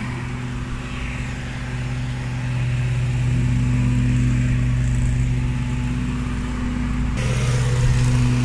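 2015 Ford F-250 Super Duty pickup's engine idling steadily, a low even hum that grows a little louder about two and a half seconds in.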